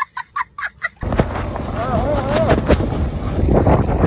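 A small child's high-pitched laugh, a quick run of 'ha-ha' pulses about five or six a second, cutting off sharply about a second in. Then comes steady street noise with wind on the microphone and a man's voice.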